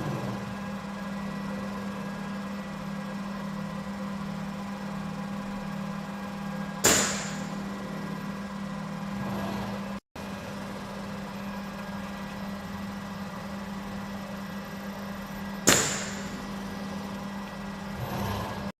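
Steady machine hum broken twice, about nine seconds apart, by a sharp snap with a short hissing tail, typical of a pneumatic three-finger Schunk gripper on a collaborative robot arm opening or closing.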